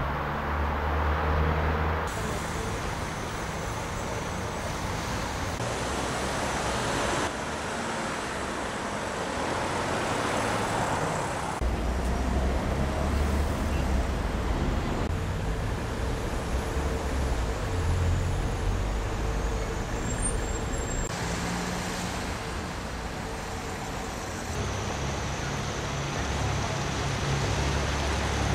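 Road traffic noise: engines running and vehicles passing, a steady low rumble under a noisy hiss that shifts abruptly every few seconds.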